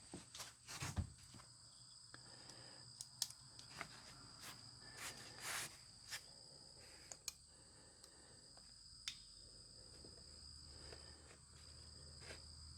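Faint, scattered clicks and short scrapes of EVA foam sheet being handled and cut, over a steady high-pitched insect chirring.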